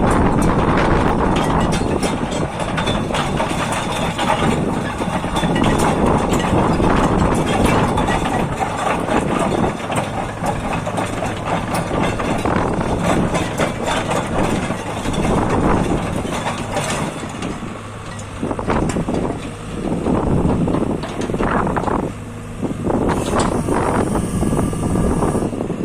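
Diesel engine of a JCB JS145LC tracked excavator running with a steady low hum, with louder noise swelling and fading every few seconds and scattered clicks and knocks.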